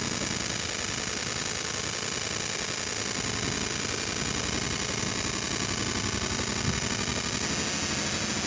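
CNC metal-cutting machine running, a steady, even mechanical noise without pauses, with one brief click near the end.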